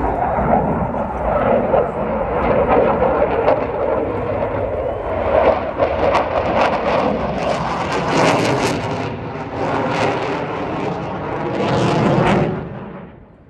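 Dassault Rafale fighter's twin Snecma M88 jet engines passing overhead, a loud, continuous roar shot through with sharp crackles in its second half, which drops away sharply near the end.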